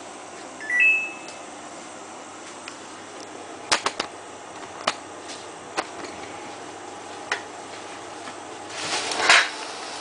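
Samsung WF8804RPA washing machine's control panel gives a short rising electronic chime as Start/Pause is pressed. Several sharp clicks from the machine follow, then a swish near the end as the drum turns the laundry.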